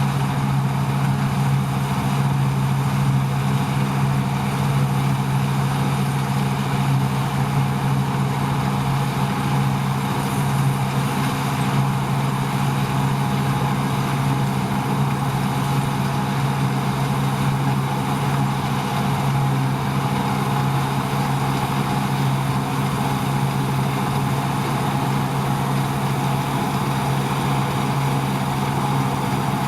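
Deutz-Fahr 5690 HTS combine harvester running steadily, a constant low engine drone that does not change in pitch or level.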